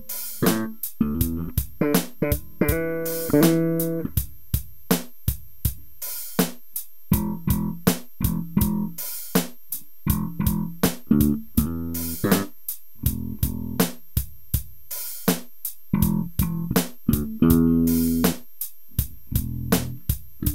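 Warwick RockBass Streamer electric bass played through a Korg Pandora PX5D multi-effects unit, its strings freshly boiled clean. Short phrases of plucked notes run over a steady drum-machine ticking beat at about four ticks a second.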